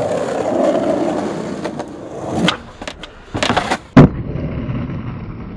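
Skateboard wheels rolling on concrete, then the board popping onto a concrete ledge and scraping down it, ending in a loud landing impact about four seconds in, followed by the wheels rolling away.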